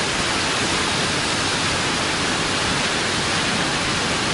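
Steady, even rush of water cascading down a waterfall, with no breaks or distinct splashes.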